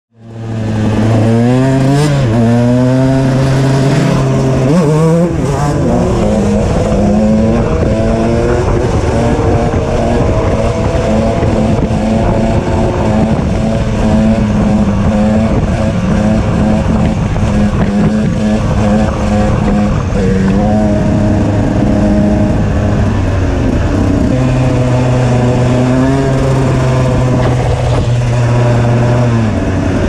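KTM EXC 125 single-cylinder two-stroke engine with an HGS exhaust, ridden hard. The pitch climbs sharply several times in the first five seconds as it accelerates through the gears, then the engine holds fairly steady high revs with a few brief dips and steps.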